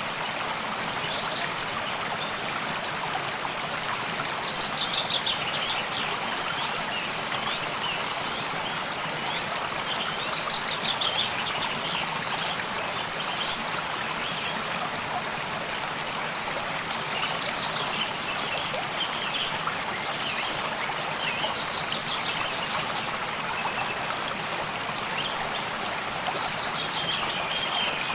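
Small stream running steadily, with songbirds singing short high phrases every few seconds.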